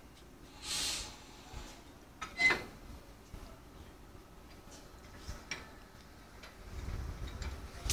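Standing electric locomotives: a short hiss about a second in, then a sharp metallic clank at about two and a half seconds, with scattered light clicks and a low rumble near the end.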